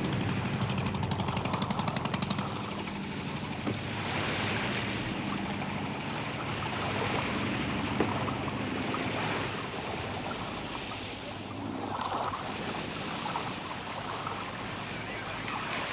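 A fast, even chopping for the first two and a half seconds or so, then a steady rush of wind and sea that swells and eases.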